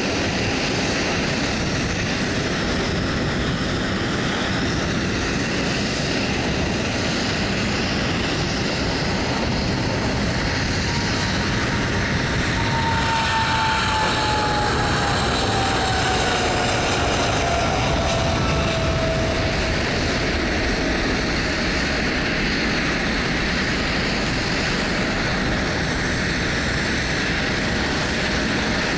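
Boeing 777 twin turbofan engines at take-off power: a steady, loud jet roar throughout. Midway, as the aircraft passes, a fan whine falls in pitch.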